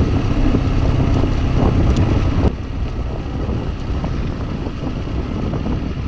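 TVS Apache RTR 200 4V's single-cylinder engine running on the move, mixed with wind rushing over the microphone. The sound drops abruptly in loudness about two and a half seconds in and stays lower after.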